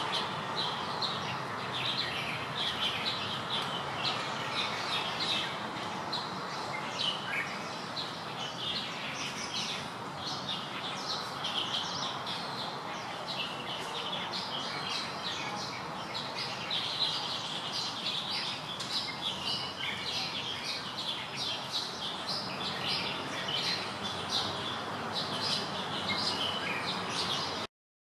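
Many small birds chirping and twittering in quick short notes, over a steady background of outdoor noise. The sound cuts off abruptly near the end.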